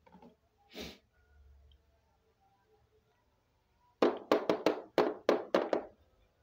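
Plastic toy animal knocking on a tabletop: one light knock about a second in, then a quick run of about eight sharp taps over two seconds starting about four seconds in.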